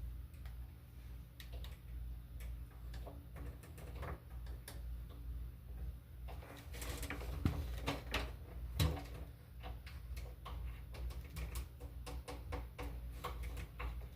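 Screws of a loose doorknob being turned and tightened: a run of small, irregular clicks and ticks that come thicker from about halfway, over a steady low hum. It takes a lot of turning, because the knob had worked very loose.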